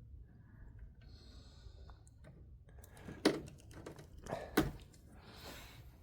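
Wire strippers biting into and pulling insulation off a wire end: a few sharp clicks from about halfway through, after a quiet start.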